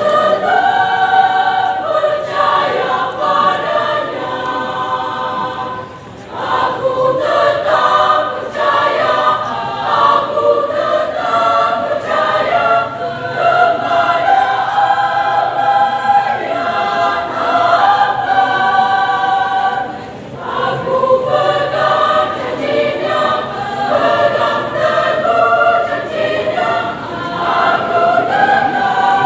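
Large women's choir singing in parts, holding sustained chords under a conductor, with short breaks between phrases about six and twenty seconds in.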